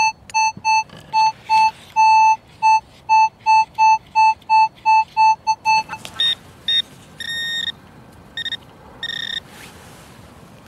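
Metal detector beeping over a target in a dug-out soil plug: a string of short, mid-pitched beeps about two a second, then about five higher-pitched beeps, signalling metal in the loose soil.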